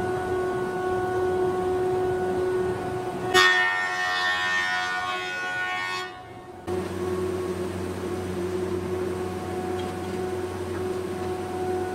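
Industrial thickness planer running with a steady hum. About three seconds in, a board enters and the cutterhead bites, giving a loud, high cutting whine for two to three seconds. The sound drops away briefly, then the steady running hum returns.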